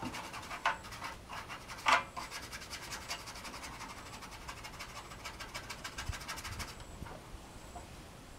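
Rapid scrubbing strokes rubbing over the plastic case of an old desktop computer, with a few louder scratchy strokes in the first three seconds, dying away about seven seconds in.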